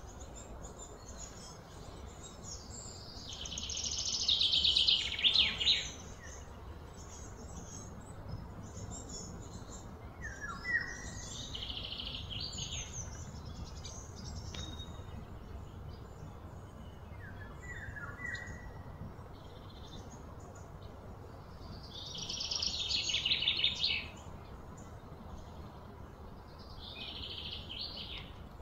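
Outdoor birdsong: short high chirps every several seconds, and twice a loud, high, rapidly pulsed trill that swells for about two seconds and cuts off abruptly, about four seconds in and again near the end.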